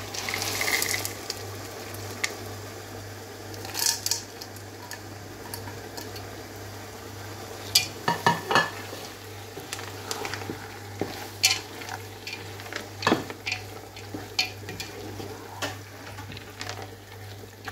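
Chicken keema sizzling in a pot while peas are added and a wooden spoon stirs them in, scraping and knocking against the pot in scattered sharp clicks. A steady low hum runs underneath.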